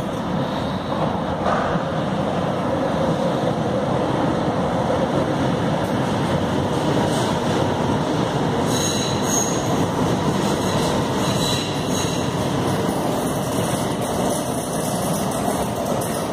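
Tyne and Wear Metrocar electric train running past along an underground platform, a steady loud rumble of wheels on rail, with high wheel squeal breaking in from about nine seconds in.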